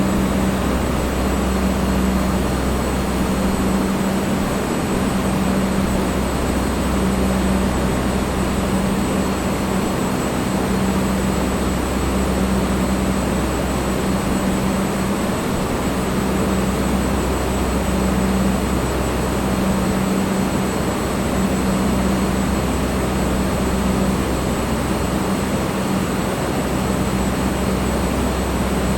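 Electric fan running steadily: an even rush of moving air with a low motor hum underneath that comes and goes every few seconds.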